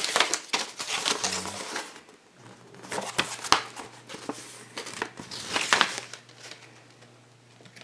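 Paper flyer and packaging rustling and crinkling as they are handled, in three or four bursts with a sharp crackle about three and a half seconds in.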